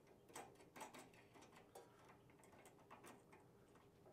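Faint, irregular small clicks of a metal jam nut being spun by hand onto the threaded end of a control cable fitting.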